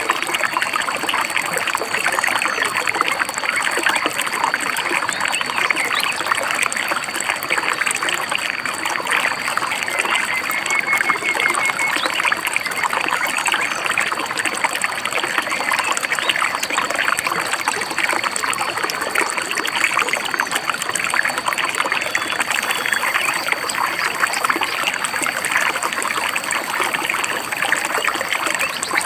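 A small stream babbling and trickling steadily over rocks.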